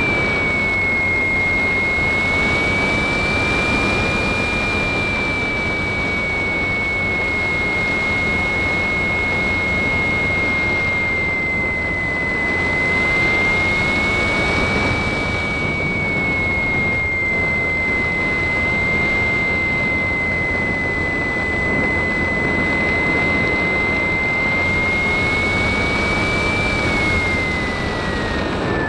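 RC model plane's motor and propeller whining in flight, recorded from the plane itself, with wind rushing over the microphone. The whine holds one high pitch that wavers a little with throttle and drops near the end.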